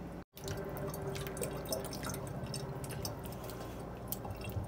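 Hands rubbing and swishing grapes in a shallow bowl of water in a stainless steel sink, making irregular small splashes and drips. The sound cuts out briefly just after the start.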